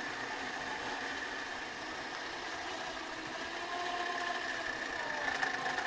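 Electric winch on a pickup truck running steadily under load as it hauls on the tree, a continuous mechanical drone with a high whine.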